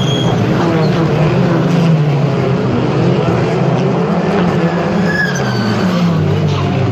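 WTCR touring cars' turbocharged four-cylinder engines running hard as the cars pass close by and carry on down the circuit, the engine pitch rising and falling through the gears.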